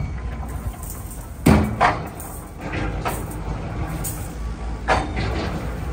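Sharp knocks, two in quick succession about a second and a half in and another near the end, over the steady low hum of a running tire baler.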